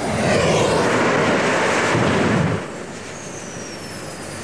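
Jet aircraft at full power launching off an aircraft carrier's catapult: a loud rushing roar for about two and a half seconds, then falling away to a lower jet rumble with a high turbine whine gliding down in pitch.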